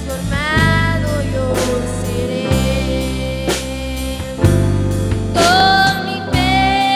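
A small live band plays a worship song: a girl's singing voice holding long notes over two keyboards, electric bass guitar and a Yamaha drum kit keeping a steady beat.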